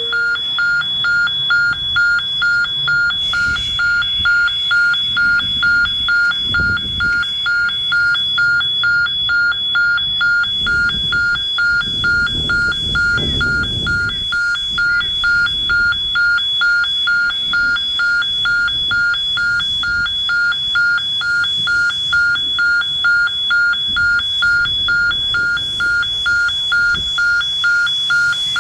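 Electronic warning bell ringing in an even rapid pulse, about two to three strokes a second. Beneath it are low, uneven rumbles from the C17 steam locomotive as it works its train.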